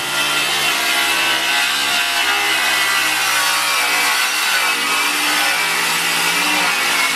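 Cordless circular saw running and cutting through the wooden frame of a kitchen base cabinet, a steady motor whine with the blade's rasp through the wood.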